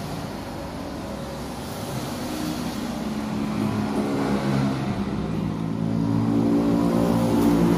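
A motor vehicle's engine running, its steady hum growing louder from about three seconds in as it comes closer.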